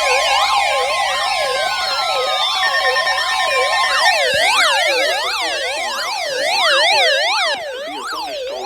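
Several electronic sirens sounding at once, each rising and falling in pitch about three times a second, layered over steady alarm tones and slowly falling whistles. The mix thins out and drops in level about seven and a half seconds in.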